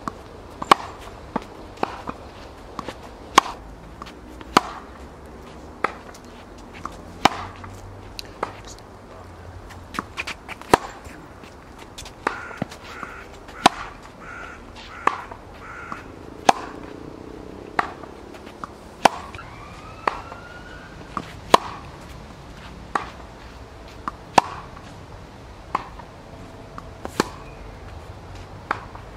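Tennis ball struck by rackets and bouncing on a hard court during a groundstroke rally, sharp pops about every second and a half.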